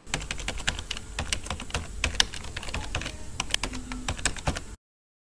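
Computer-keyboard typing, a quick, irregular run of key clicks used as a sound effect while text is typed out; it stops abruptly near the end.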